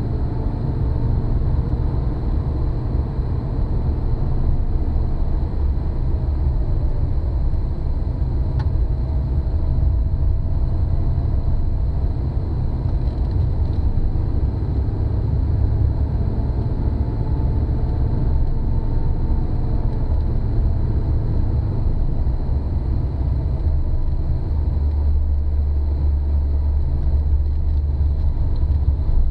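Opel Commodore C's straight-six engine and tyres heard from inside the cabin while driving at low speed: a steady low drone with a faint engine note that rises and falls gently. The low drone grows louder for the last few seconds.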